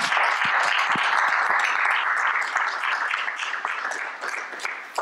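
Audience applauding: many people clapping at once, holding steady and then dying away near the end.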